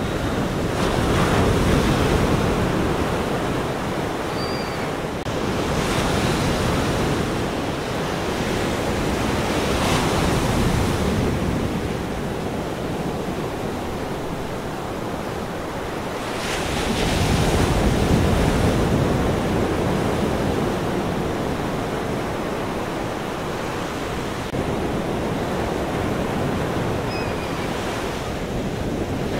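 Ocean surf: waves washing and breaking in slow swells that rise and ease every few seconds.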